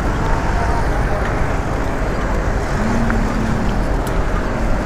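Steady rumbling noise of wind on the microphone and road traffic heard from a moving bicycle, with cars going by on the multi-lane road alongside.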